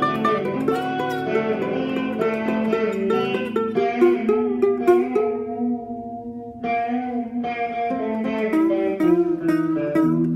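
Guitar playing: a run of plucked notes and chords, dropping away briefly about six seconds in before picking up again.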